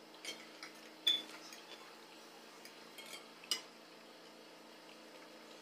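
Fork clinking and tapping against dishes: a few light clicks, a ringing clink about a second in and a sharper tap about three and a half seconds in.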